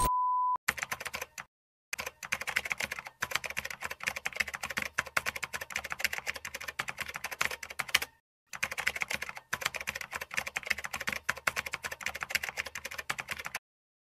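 A short steady beep, then rapid dense clicking in several runs, broken by gaps of dead silence.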